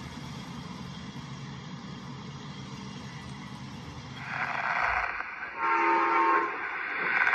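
A steady low rumble of a LEGO train running on plastic track, then about four seconds in a louder rush of noise and a brief multi-tone train horn near six seconds.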